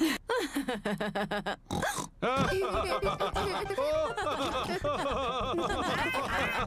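Cartoon pig family laughing: one voice laughs first in short rhythmic bursts, then several voices join in about two seconds in and laugh together.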